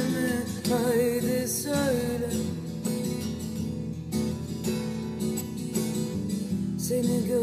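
Background music: an instrumental break in a Turkish love song, no lyrics sung, with a melody line that wavers in pitch over the first couple of seconds and a steady accompaniment after.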